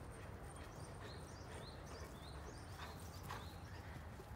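Small birds chirping faintly over and over, about two or three short chirps a second, over a low steady rumble of background noise.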